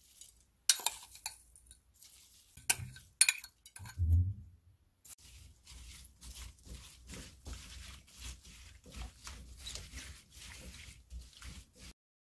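A metal spoon clinks several times against the pan as coarse salt goes onto diced Korean radish, with a low thump about four seconds in. Then gloved hands mix the radish cubes in the salty water: a steady run of soft wet swishes and knocking of the cubes, which stops suddenly near the end.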